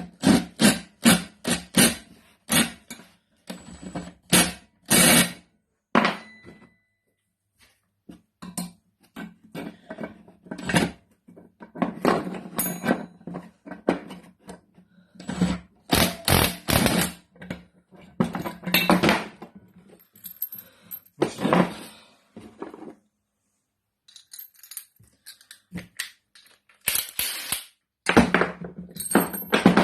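Repeated metal knocks and clinks of hand tools working on the turbo wastegate, coming in quick runs with short pauses, as the old wastegate flapper bush is worked loose and pulled out.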